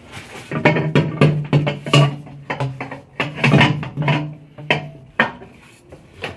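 Background music: a guitar playing a run of quick plucked notes.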